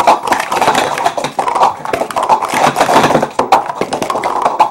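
Plastic sport-stacking cups clattering in a fast, unbroken run of clicks and taps as they are stacked up and down at speed.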